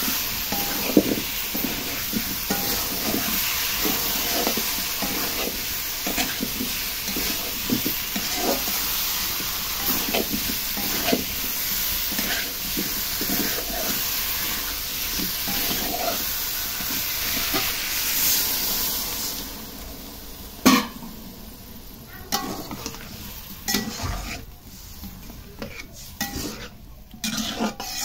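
Metal spatula scraping and stirring chunks of elephant foot yam, potato and rohu fish frying in sizzling oil in an aluminium karahi, with strokes about once a second. About two-thirds of the way through, the sizzle dies down and only occasional scrapes and clinks of the spatula on the pan remain, one sharp knock among them.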